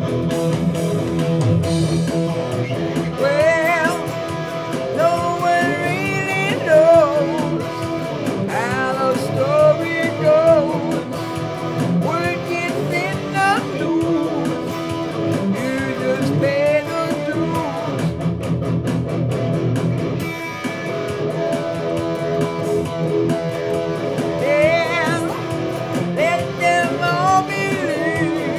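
Electric guitar, a PRS SE Standard, playing a lead line with bent and sliding notes over strummed chords and a drum machine beat, as the instrumental part of a rock song.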